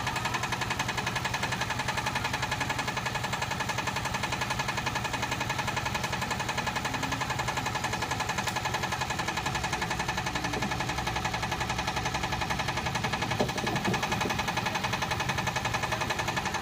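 Single-cylinder Yanmar TS diesel engine driving a Hiab 140 crane, running steadily with a fast, even knocking beat.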